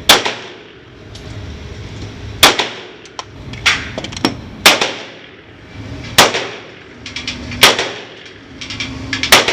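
A string of seven gunshots from a firearm, fired about 1 to 1.5 seconds apart, each a sharp crack with a short echo, with fainter shots from other shooters on the range in between.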